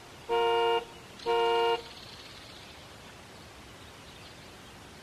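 Car alarm sounding two loud honking tones, each about half a second long and a second apart, in its horn-blast phase after a warbling siren cycle. A faint steady hiss follows.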